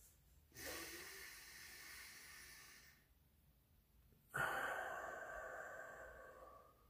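One slow, deep human breath: a drawn-in inhale lasting about two and a half seconds, a pause while the breath is held at the top, then a louder exhale through the mouth that starts suddenly and fades away over about two seconds.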